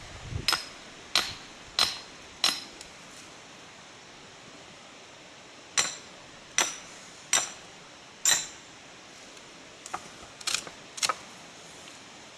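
Hammer striking a splitting wedge to cleave a hazel rod lengthways: two runs of four ringing, clinking blows a little under a second apart, then a few lighter taps near the end.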